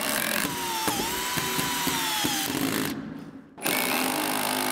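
Cordless drill driving a screw into the I-joist framing, its motor whine sagging under load for about two and a half seconds. After a short drop, a steady low hum takes over for the last second.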